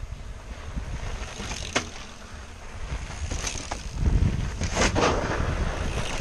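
Mountain bikes climbing a dirt trail and riding past close by, tyres rolling over dirt with a few sharp clicks, under a steady rumble of wind on the microphone. It grows louder from about four seconds in as the nearest rider comes alongside.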